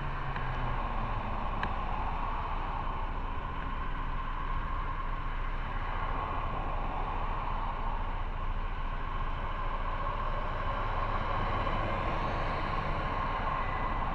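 Motorcycle engine running while riding, under a steady rush of wind and road noise; the engine note falls in the first second, then holds steady.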